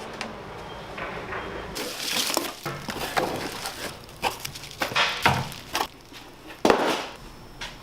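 Irregular knocks, clicks and rustling, with two louder knocks about five seconds in and near the end.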